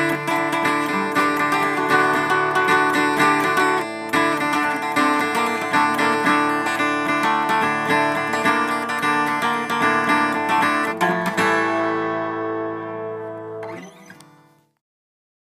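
Acoustic guitar music, plucked and strummed, ending on a last chord that rings out and fades away near the end.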